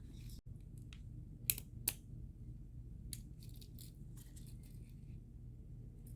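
Small clicks and rattles of hard plastic and metal parts being handled during the teardown of a GFCI outlet, with two sharper clicks about a second and a half in and a cluster of lighter ones later, over a steady low hum.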